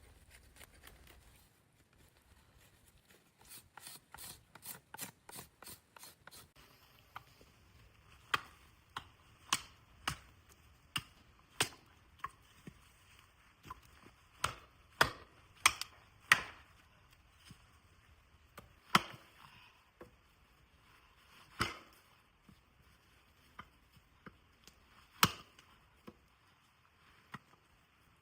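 Wood being chopped by hand: sharp knocks at irregular spacing, roughly one a second, with the loudest strikes in the middle and near the end. Before them comes a quick run of lighter clicks, about four a second.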